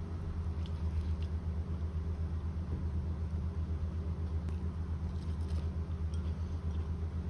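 Electric fan's motor humming steadily, a low hum that pulses quickly. A few faint clicks sound over it.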